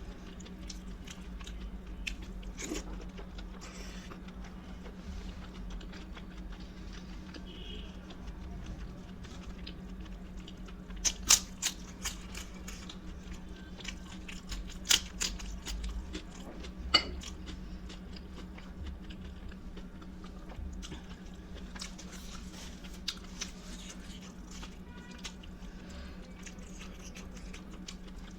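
A person chewing and biting food close to the microphone, with wet mouth clicks throughout and several sharp, loud crunches a little past the middle.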